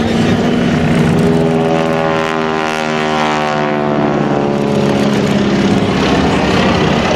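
Piston engine and propeller of a biplane flying past, a steady drone whose tone bends and shifts about halfway through as it goes by.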